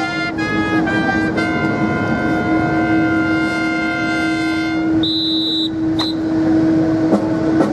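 A pitched chord, like brass music or a horn, is held for several seconds over a steady low hum. About five seconds in a shrill whistle blast sounds, then a short second blip. A few sharp clacks follow near the end.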